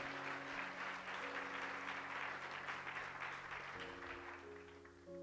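Congregation applauding, dying away about four seconds in, over soft sustained chords of background music that carry on after the applause stops.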